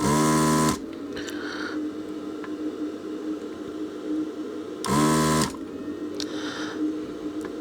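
Desoldering station's vacuum pump switching on twice in short bursts, the first right at the start and the second about five seconds in, sucking molten solder out of circuit-board vias.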